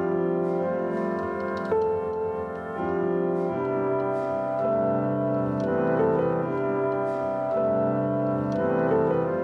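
Background music: sustained keyboard chords that change every second or so, with light ticking percussion.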